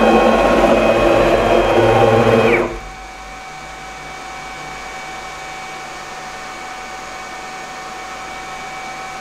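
Stepper motors of a gantry CNC router whining as the spindle head travels quickly across the table, a loud multi-tone whine that winds down and stops a little under three seconds in. After that a steady hum with a thin high tone continues.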